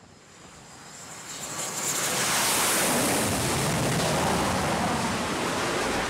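Jet noise from the X-47B's turbofan engine as the drone lands on the carrier deck: a rushing noise that swells over the first two seconds, then holds steady and loud.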